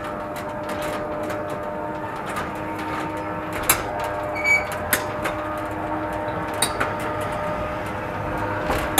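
Metal roller shutter running down over a shop front, a steady hum under scattered rattles and clicks from the slats, with a few sharper knocks in the middle.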